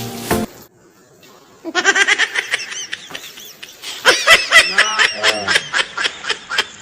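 High-pitched laughter in quick rapid bursts, starting about two seconds in after background music cuts off and a short pause.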